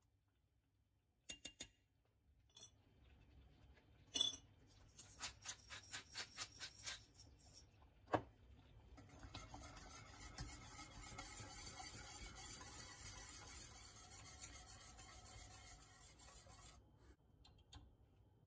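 Wire whisk beating a cream sauce in a stainless steel saucepan: a steady scraping swish for several seconds in the second half. Before it, a few sharp metal clinks and a quick run of taps against the pot.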